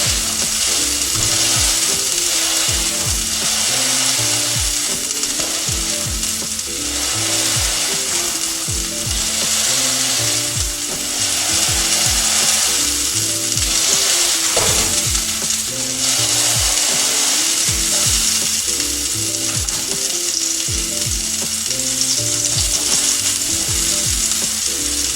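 Hamburger patty sizzling steadily in a hot frying pan after being pressed down, with background music and a steady beat underneath.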